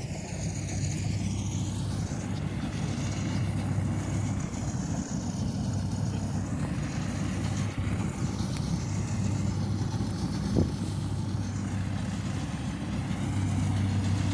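Rice combine harvester running steadily at working speed, a constant low engine hum. A single brief knock about ten and a half seconds in.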